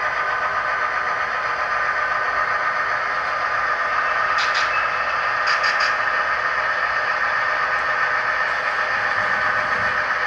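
Model railroad freight train running past, with its cars rolling on the track in a steady running sound and a few brief clicks about halfway through.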